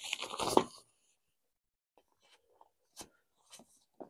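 Fabric of a Wildland Oasis 180 awning rustling as it is pushed up by hand, stopping after about a second. A few faint clicks and taps follow, one sharper click about three seconds in.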